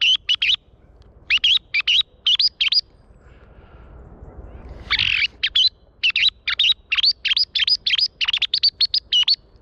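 Rapid, loud, short high chirps of the kind thrushes give. A few come at the start, then about five between one and three seconds in, then a long run of a dozen or more from about five seconds in.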